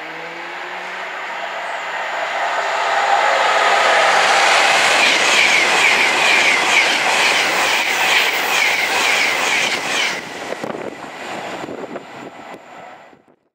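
Class 390 Pendolino electric express passing through the station at speed without stopping: a rush that swells as it approaches, then rapid wheel clicks over the rail joints and a high whine as it goes by, dropping away after about ten seconds and fading out.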